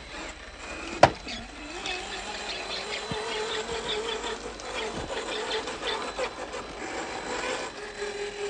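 Cross RC Demon scale crawler's electric motor and geared transmission whining at crawling speed, the pitch wavering as the load changes. A single sharp knock about a second in.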